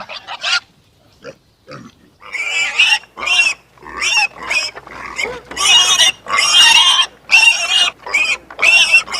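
An animal giving a rapid series of loud, short, high-pitched calls, starting about two seconds in after a few faint sounds.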